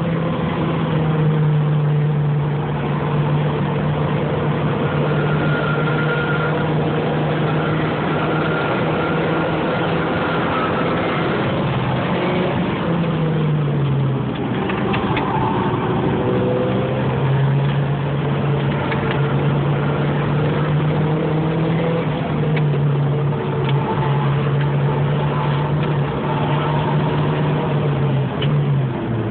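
Porsche 944 Turbo Cup's turbocharged four-cylinder engine heard from inside the cabin while driven hard on track, holding a steady high note, over wind and road noise. About thirteen seconds in, the note drops, then climbs back a few seconds later.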